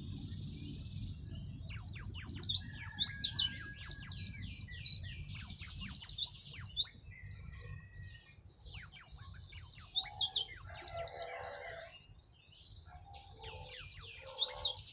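Caged white-eye (pleci) singing loudly in three long bursts of quick, high, down-slurred notes, with short pauses between them.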